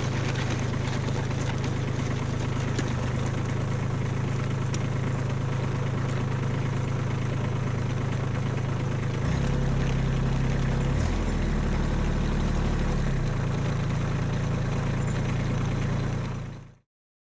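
Kubota B2601 compact tractor's three-cylinder diesel engine running steadily while parked, powering the rear broadcast spreader. About nine seconds in the engine note changes and grows slightly louder, shifting again a couple of times before the sound fades out quickly near the end.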